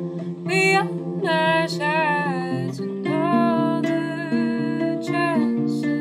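A woman singing solo over her own classical guitar, which she plays in steady picked notes. Her sung phrases come in about half a second in, with vibrato on the held notes.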